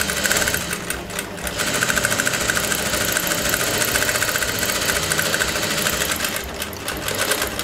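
Industrial single-needle lockstitch sewing machine running fast and steadily, its needle strokes repeating rapidly as it stitches along the edge of a lapped seam, easing off near the end.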